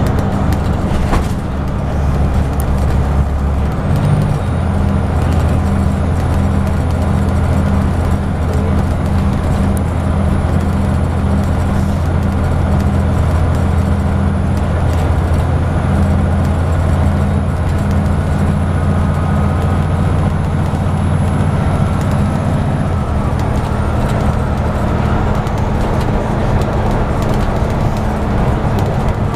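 Scania N94UB Omnidekka double-decker bus under way, heard from inside the upper deck: a steady engine drone over road and tyre noise, its note shifting a few seconds in and again near the end, with a faint high whine running for most of the time.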